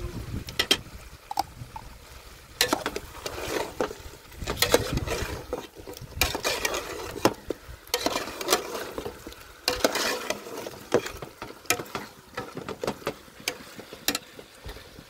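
Metal spoon stirring and scraping chicken pieces in an aluminium pot, with repeated clinks against the pot and the sizzle of the meat frying in tomato paste.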